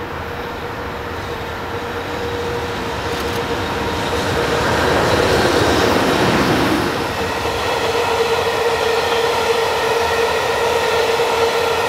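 EH500 electric freight locomotive approaching and passing close by, growing louder to its peak about five to seven seconds in. After that comes the steady rolling of Taki 1200 tank wagons over the rails. A steady hum runs under it throughout.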